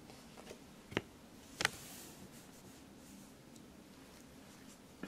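Tarot cards being handled: faint ticks, then two sharp clicks about a second in, the second louder, as a card is drawn from the deck and laid face up on a cloth-covered table.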